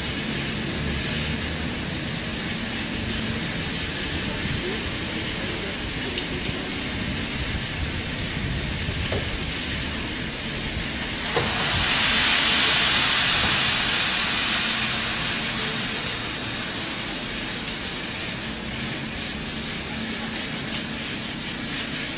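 Train at a station platform: a steady low rumble and hum, with a loud hiss that starts suddenly about halfway through and dies away over about three seconds.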